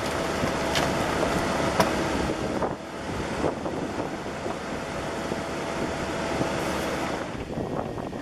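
Bobcat E50 mini excavator's diesel engine running under hydraulic load with a steady whine. Two sharp clanks come about one and two seconds in, and it eases off near the end.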